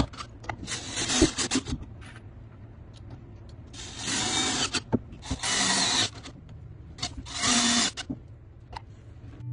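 Cordless drill driving screws through pocket holes into wood: four short runs of about a second each, the motor spinning up and the screw grinding into the wood, with short pauses between.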